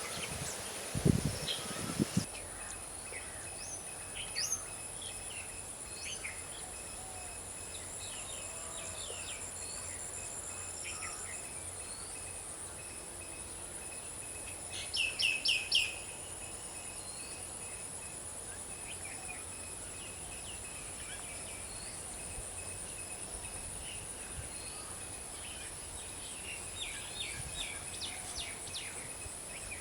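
Outdoor bird-and-insect ambience: a steady high-pitched insect drone with scattered short bird chirps, including a quick run of about five sharp chirps about halfway through and more chirps near the end. A few low thumps sound near the start.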